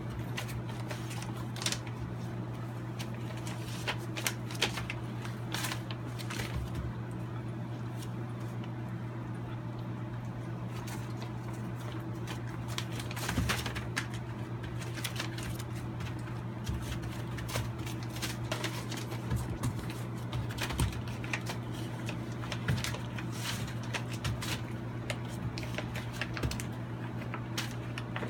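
Puppies scrambling over newspaper: the paper rustles and crinkles with irregular little clicks of claws. A steady low hum runs underneath.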